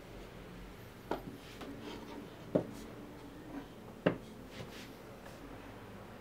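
Three light knocks about a second and a half apart, with small rubbing and handling noises between them, over a faint steady hum: parts and tools being handled at a workbench.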